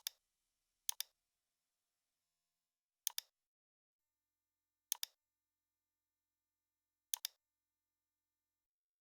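Computer mouse button clicking about five times, a second or two apart, each click a quick press-and-release pair, with near silence between.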